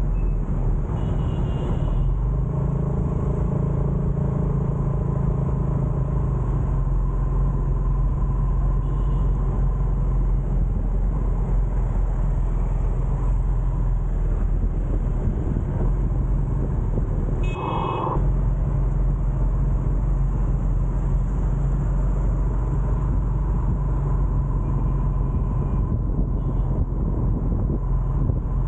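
Steady low rumble of riding in light traffic: the engine hum, wind and road noise of the vehicle carrying the camera, with motorbikes and cars running alongside.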